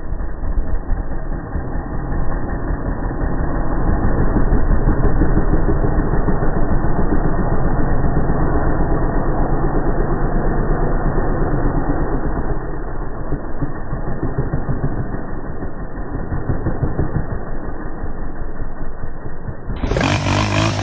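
Honda TRX 400cc ATV's single-cylinder four-stroke engine running steadily, getting louder a few seconds in and then holding; the sound changes abruptly near the end.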